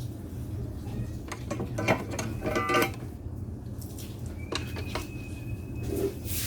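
Light metallic clinks and knocks, clustered between about one and a half and three seconds in, over a steady low hum. A thin high tone follows about four and a half seconds in.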